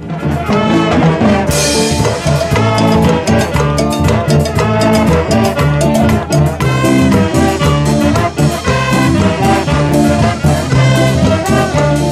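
Brass band of saxophones, trumpets and trombones playing a lively Latin dance tune over a steady drumbeat.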